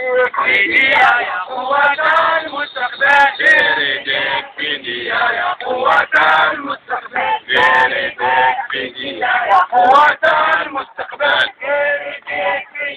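Protesters chanting slogans in Arabic, loud voiced phrases repeated in a steady rhythm with short breaks between them.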